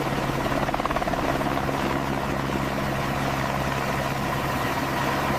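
Mil Mi-26 heavy-lift helicopter in flight: a steady, unbroken run of rotor and turbine noise with a low hum underneath.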